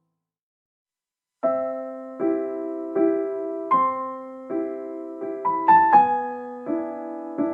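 Silence, then about a second and a half in, background piano music begins: gentle chords struck about once every three-quarters of a second, each fading before the next.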